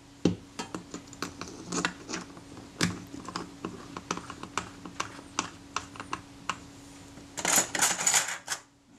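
Irregular light clicks and taps of a small metal tool and a Kodak Retina IIIc camera body being handled, with a short burst of scraping near the end as the tool is fitted into the camera.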